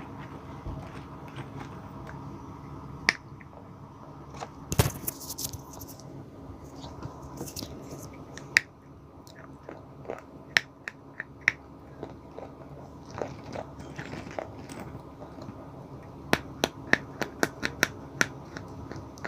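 Sticks of white chalk being bitten and crunched: scattered sharp snaps, with a quick run of crunches near the end.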